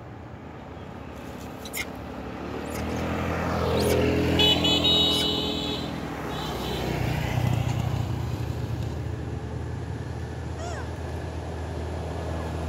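A motor vehicle's engine grows louder as it comes past, and a horn sounds for about a second near the loudest point, then once more briefly and fainter. The engine hum then carries on steadily.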